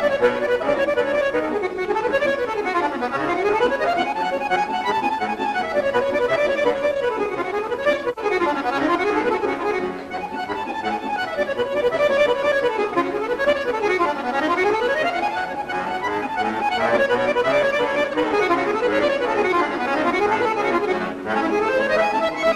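Chromatic button accordion (bayan) played solo, with quick runs of notes rising and falling over and over in a lively tune.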